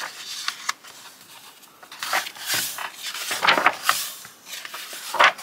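Paper rustling as the pages of a book are handled and turned: a few short rustles, starting about two seconds in.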